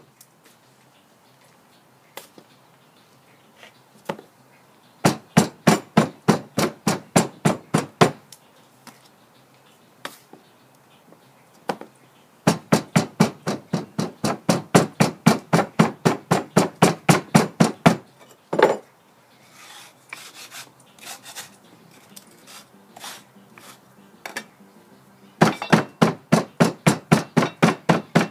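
Hammer ramming Petrobond oil-bonded sand into a wooden mold flask, packing it tight: three runs of rapid, even blows at about five a second, with softer taps and scraping between the runs.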